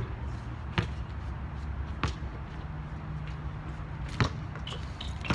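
Basketball bouncing on an outdoor court: four sharp, separate bounces, unevenly spaced.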